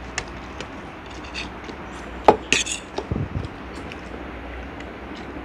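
Forks clicking and scraping against a shared plate of fried instant noodles, scattered and irregular, with the sharpest clink a little over two seconds in and a dull knock about a second later.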